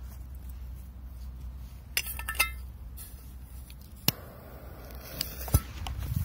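Handling noises as a firecracker is set on soil and a metal bowl and jet lighter are handled: a quick cluster of sharp clicks and clinks about two seconds in, then single clicks about four seconds in and near the end.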